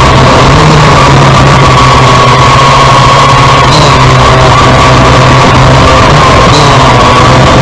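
Kai Deng K70C quadcopter's electric motors and propellers running, a loud steady drone with a low hum and a higher whine that waver slightly in pitch.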